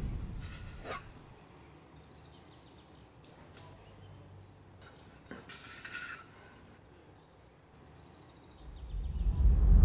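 A knife and fork cut meat on a porcelain plate, making faint clicks and scrapes, over a steady high-pitched pulsing trill like a cricket. A loud low rumble fades out at the start and swells up again near the end.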